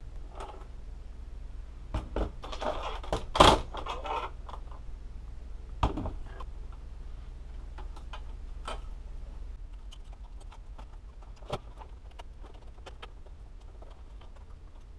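Scattered clicks and knocks of plastic printer housing parts being handled and fitted, busiest for a couple of seconds early on with one sharp knock, over a low steady background hum.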